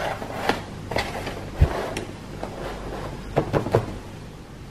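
Small cardboard toy boxes being pushed and set down on a tabletop: a series of light knocks, the loudest a dull thump about a second and a half in, then a quick run of three near the end.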